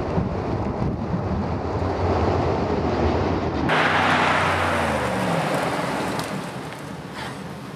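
Wind buffeting the microphone over a vehicle's rumble. Then, about four seconds in, comes a sudden rush of tyre noise with an engine note falling away as a Mercedes G-class brakes hard from 80 km/h to a stop.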